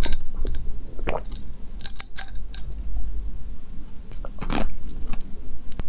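A person drinking from a glass close to a lavalier microphone: gulps and swallows with wet mouth and lip clicks, one louder about four and a half seconds in.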